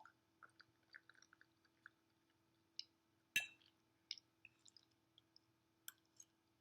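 Close-up chewing of soft, creamy mac and cheese: small wet mouth clicks and smacks at irregular intervals, with one sharper, louder click about halfway through.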